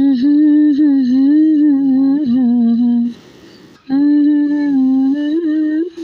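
A woman humming a tune without words, in two smooth held phrases with a short break about three seconds in.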